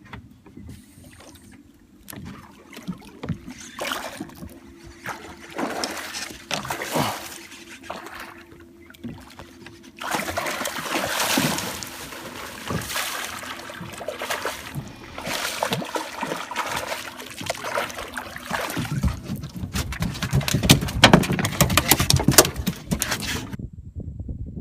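Sounds on a small fishing boat as a hooked redfish is reeled in and landed: water splashing and knocks from handling against the hull over a faint steady hum. It grows louder and busier in the second half and cuts off abruptly near the end.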